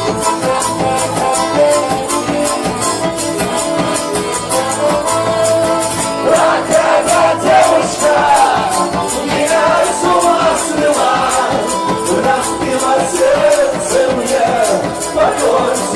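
Live band playing an instrumental break of a pop-folk song: a tambourine keeps a steady beat under held chords, and from about six seconds in a sliding, bending melody line comes in over the top.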